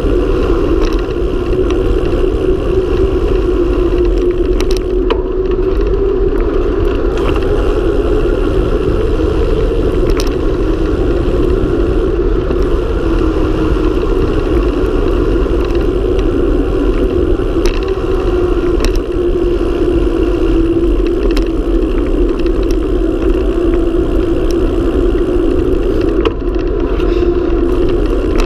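Wind rushing over the microphone and tyres humming on asphalt as a mountain bike descends at speed, a steady loud noise with a hum that drifts slightly in pitch. A few light clicks come through from bumps in the road surface.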